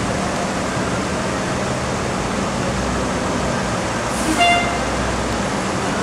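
Fire engine's diesel idling steadily in the station bay, with one short horn toot about four and a half seconds in.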